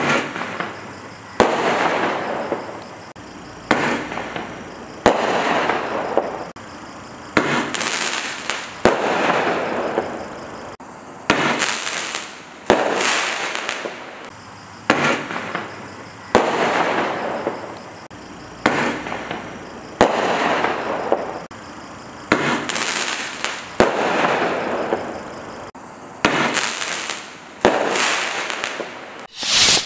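Standard Fireworks Star Blast shot tubes firing a long series of shots, about one every second and a half. Each is a sharp bang followed by a noisy burst that fades over a second or so.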